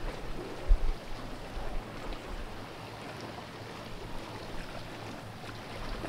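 Calm sea water washing and lapping against the rocks of a narrow inlet, a steady wash. Wind buffets the microphone a couple of times in the first second.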